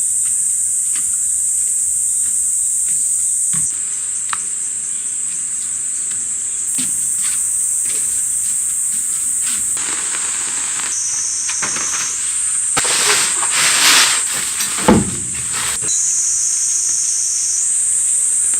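Steady, high-pitched chorus of forest insects that jumps abruptly in pitch and loudness several times. Scattered small clicks and knocks run through it, with rustling bursts late on and one sharp thump a few seconds before the end.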